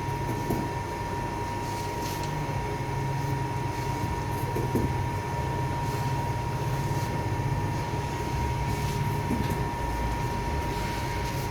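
Steady hum and rumble of running bakery equipment, with a constant thin whine over it and a few faint clicks and knocks.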